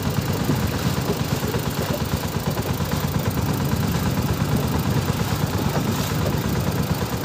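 Boat engine running steadily: a low, even drone with a fast throb.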